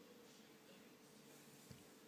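Near silence: faint room tone with a low steady hum, broken by one soft thump near the end.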